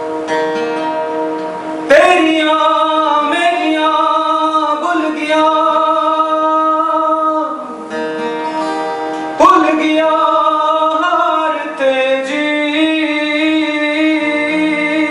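Acoustic guitar strummed while a man sings, with hard chord strums about two seconds in and again about halfway through.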